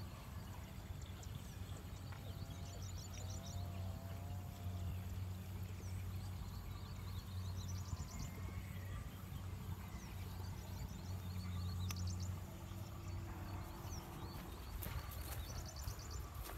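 Birds chirping in short, repeated high trills and a few warbling calls over a steady low hum, with some sharp knocks near the end.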